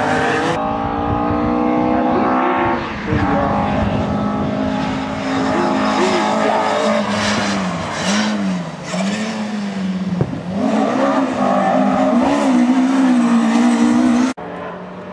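Rally car on a special stage, its engine note holding and sagging, then dipping and rising several times through throttle lifts and gear changes. The sound cuts off abruptly near the end.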